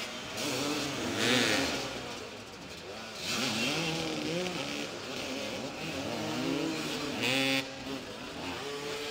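Several motoball motorcycles revving up and down at once as they jostle around the ball, their pitch rising and falling continually. Two short loud bursts of hiss cut in, about a second in and again around seven and a half seconds.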